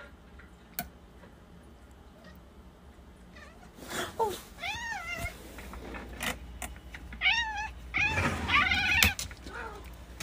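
A domestic cat meowing several times, with drawn-out calls that rise and fall, first about four seconds in and then again more loudly near the end. A few short knocks come in between.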